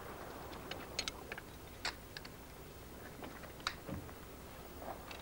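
Faint, scattered light clicks and taps, a few at a time about a second apart, from recovered pottery pieces being handled and measured on a work surface.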